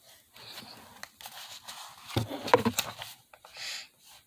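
Paper rustling and handling noise as an open paperback is lowered from in front of the camera, with a louder bump about two seconds in.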